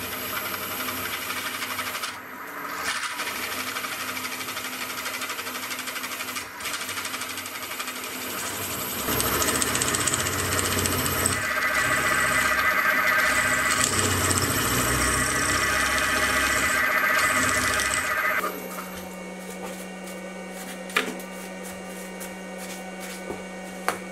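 A milling machine plunging a 20 mm ball end mill into a steel block, a loud, rough cut from a setup that is not rigid enough. The cutting grows louder in the middle, then stops about three-quarters of the way through, leaving a steady hum and a couple of clicks.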